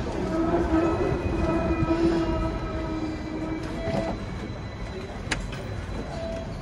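Hong Kong double-decker electric tram in motion: a steady low rumble with a humming tone that fades away over the first few seconds, and one sharp click about five seconds in.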